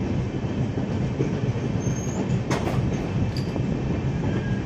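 Passenger train running on the rails, heard from on board: a steady rumble with a couple of sharp clicks of wheels over rail joints about halfway through, and brief faint wheel squeals.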